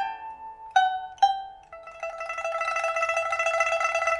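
Old rosewood pipa by Han Fusheng (2002), fitted with a newly replaced fire-baked soundboard, played solo: a few single plucked notes ringing out, then from about two seconds in a fast tremolo sustaining the notes.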